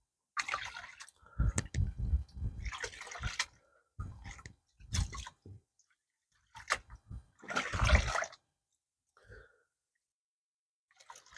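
Gold pan being shaken and dipped in water, sloshing and splashing in several bursts with short pauses between: light sandy paydirt washing off over the riffles while the gold settles to the bottom.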